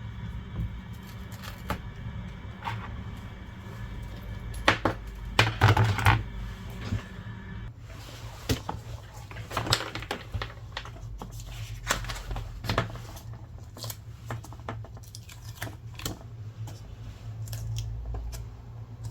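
Irregular clicks, taps and small knocks of hand repair tools and parts being worked on a tablet at a repair bench, with a cluster of louder clicks about five to six seconds in, over a steady low hum.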